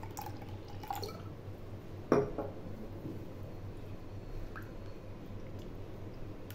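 Water poured from a glass into yogurt in a glass bowl, with one sharp knock about two seconds in, then soft squelching as a silicone spatula stirs the thinned yogurt.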